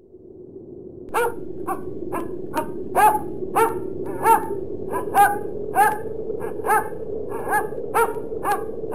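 A dog barking in a string of short, uneven barks, about two a second, starting about a second in, over a steady low hum. The barks stand for the alien dog's speech, subtitled as a friendly greeting.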